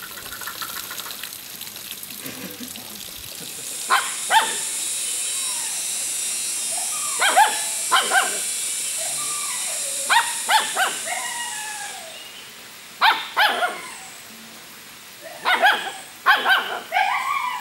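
Puppies yelping and barking while they play-fight, in short high calls that come in clusters of two to four, some sliding down in pitch.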